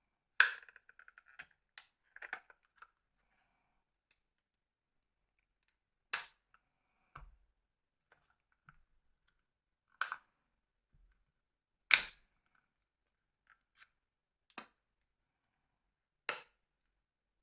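Sharp clicks and knocks from handling and working apart an old mobile phone's battery pack by hand: about five distinct clicks a few seconds apart, the loudest just after the start and about twelve seconds in, with fainter ticks and taps between.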